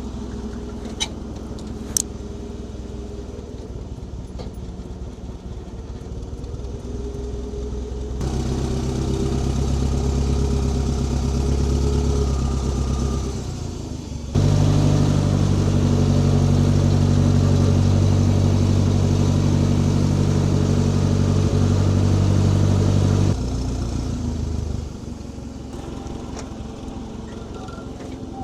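Engine of the machine carrying the pickup bed running: at a low speed at first, brought up about eight seconds in and higher again about fourteen seconds in, then dropping back near idle about twenty-three and twenty-five seconds in.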